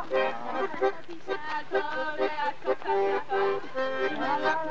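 Piano accordion played live: a tune in short, held chords that change every fraction of a second.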